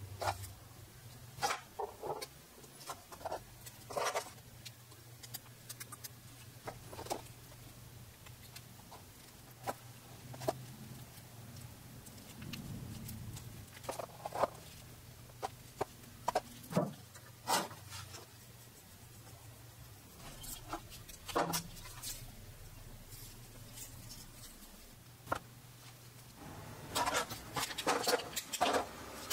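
Scattered light clicks and knocks of a knife's epoxy-coated handle scales and plastic spring clamps being handled and clamped onto the blade, with a quicker run of clicking near the end. A low steady hum runs underneath.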